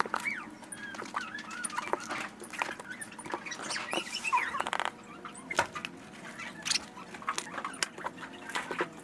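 Fast-forwarded audio: high-pitched, squeaky chatter from a sped-up recording, with many quick clicks and knocks throughout.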